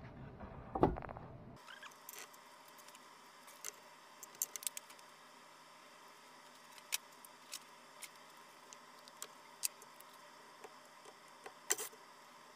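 A wooden wine barrel head knocks down onto a plywood board about a second in. After that come sparse, light clicks and taps of small metal hardware and tools being handled on the wood.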